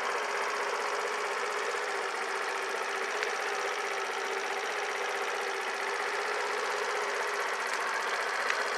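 Suzuki Let's 50cc-class scooter engine idling steadily at an even pace.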